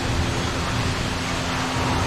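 Steady rushing noise with a faint low hum underneath: the ambience aboard a slow-moving indoor ride boat, with water and the ride's soundtrack effects.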